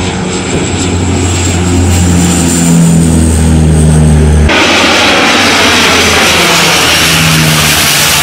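Canadair CL-415 Super Scooper water bomber's turboprop engines and propellers giving a steady low drone that shifts slightly in pitch. About four and a half seconds in, the sound changes abruptly to a loud, even rush, with the propeller hum fainter underneath.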